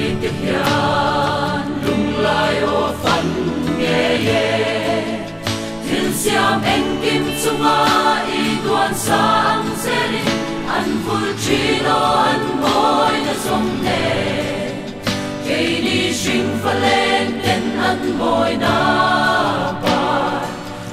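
Mixed choir of men and women singing a gospel song.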